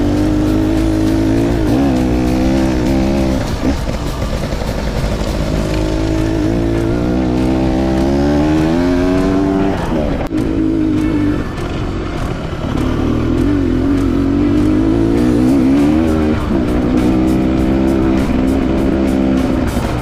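Enduro motorcycle engine under way, its pitch climbing and falling with the throttle; it climbs steadily and then drops sharply about halfway through, as at a gear change.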